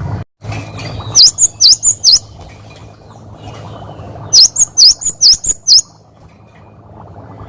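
Cinereous tit (gelatik batu) singing two phrases of four or five sharp, quickly repeated whistled notes, a loud 'wucit wucit', the second phrase a few seconds after the first.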